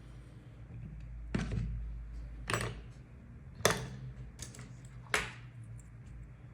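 Adhesive tape being pulled and pressed down during an iPhone battery repair: about five short, crackly rasps, the loudest near the middle, over a low steady hum.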